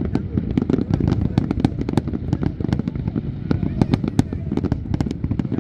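Fireworks show exploding: dense, irregular sharp cracks, several a second, over a continuous low rumble of bursts.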